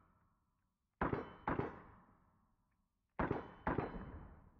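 Gunshots from a pistol fitted in a CAA carbine conversion kit, fired in quick strings. There are two shots about half a second apart about a second in, and another quick string starting about three seconds in, each shot sharp and fading fast.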